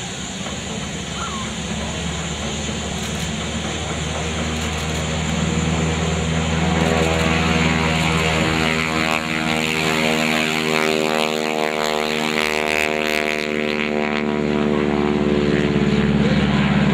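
Stearman biplane's radial engine and propeller at full power on the takeoff run and climb-out. It grows louder as the plane comes closer, and its pitch drops gradually as it passes.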